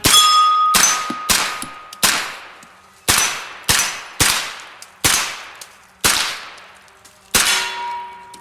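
Colt AR-15 9mm carbine firing a rapid string of about ten shots at steel plates, the first three quickly, then a steady string with the last shot after a longer pause; the steel rings after some hits.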